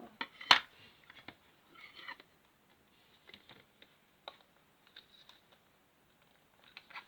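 Small plastic building-block pieces being handled and snapped together: scattered light clicks and taps, the sharpest about half a second in.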